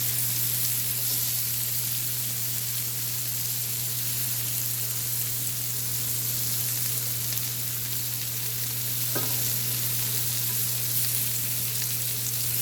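Sliced white matsutake mushrooms sizzling in butter in a frying pan, a steady hiss with a steady low hum underneath. A single light tap comes about nine seconds in.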